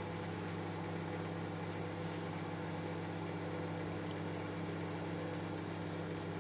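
Microwave oven running, a steady low hum that does not change.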